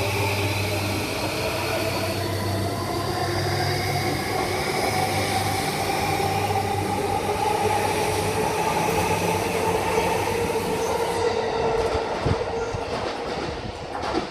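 E235 series electric train pulling away, its traction motor inverter whine slowly rising in pitch as it accelerates over a steady low hum. A few wheel clicks over rail joints come near the end as the sound starts to fade.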